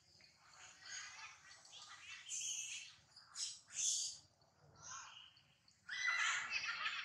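High, chirping animal calls: a few short calls through the middle, then a louder, busier run of calls near the end.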